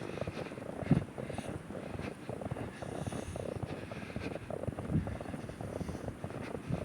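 Blizzard wind buffeting the microphone: an uneven, fluttering low rumble, with stronger gusts about a second in and again near five seconds.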